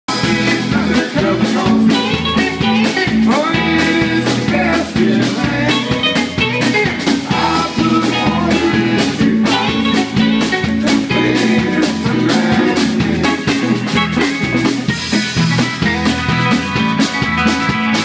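Live band jamming on electric guitars, electric bass, acoustic guitar and a drum kit, with a steady drum beat.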